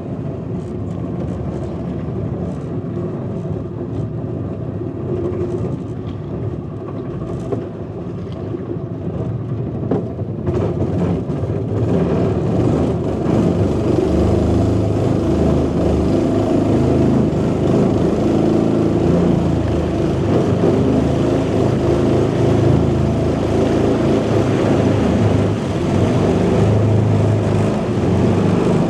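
Small river boat's motor running steadily, then picking up and running louder from about eleven seconds in.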